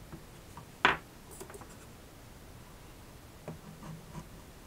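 Quiet handling noise on a workbench: one sharp tap about a second in, then a few faint clicks and rubs, from hands and multimeter probes on a bare motherboard.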